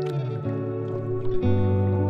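Background music: sustained, mellow chords changing about every second, with a few faint splashes of water.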